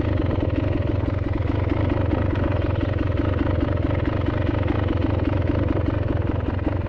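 Off-road vehicle engine running steadily at an even speed.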